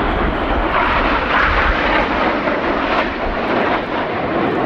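A formation of BAE Hawk T1 jet trainers flying past, their Adour turbofan engines making a loud, steady rushing jet noise. The deep rumble underneath thins out after about two seconds.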